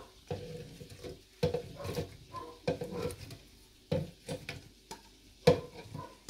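Watermelon chunks dropped by hand from a plate into a blender jug: a string of irregular soft thuds and knocks, the loudest about five and a half seconds in.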